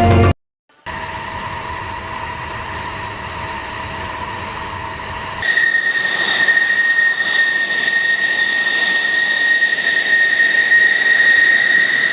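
Fighter jet engine noise: a steady rushing roar with fixed whining tones, which cuts about five and a half seconds in to a louder engine with a strong high-pitched whine. A brief silence comes first, as the music cuts off near the start.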